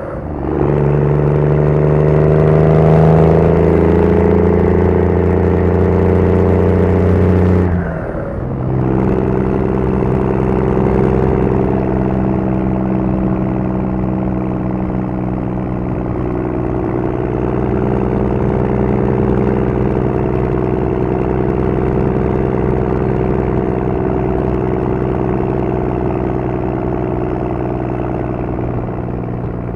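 A 2002 Dodge Ram's 5.9-litre Cummins 24-valve inline-six turbodiesel, heard loud through its 5-inch exhaust and 8-inch stack while towing a trailer. It pulls hard under heavy throttle, its pitch climbing slightly, then cuts back sharply about eight seconds in. It then runs on steadily at an even cruise.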